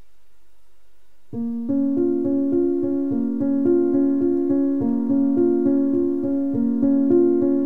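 Background music played on a piano-sounding keyboard: an even run of notes that comes in about a second and a half in, after a faint low hum.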